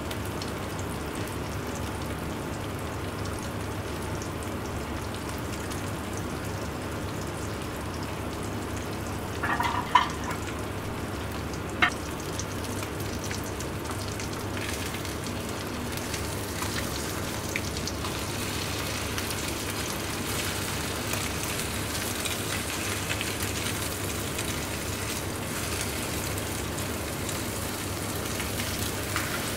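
Egg-and-milk-soaked baguette slices frying as French toast in a nonstick pan, a steady sizzle. Two sharp clicks of tongs against the pan come about ten and twelve seconds in. The sizzle grows brighter in the second half as browned pieces are turned over.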